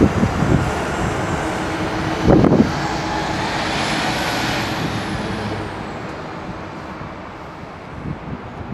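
Fire trucks driving past, their engines and tyres rumbling, then fading as they pull away. There is a short loud burst about two and a half seconds in.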